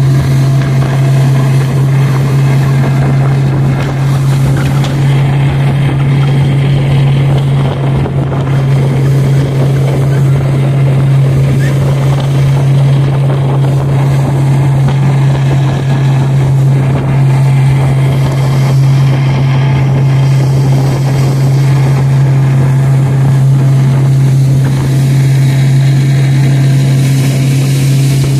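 Motorboat engine running steadily at cruising speed: a loud, even low drone with no change in pitch, over rushing noise.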